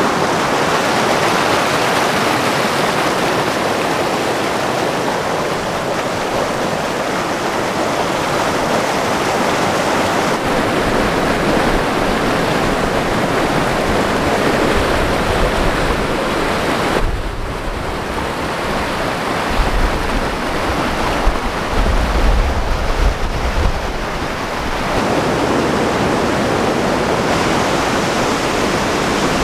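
Fast-flowing mountain stream rushing over rocks: a loud, steady rush of water.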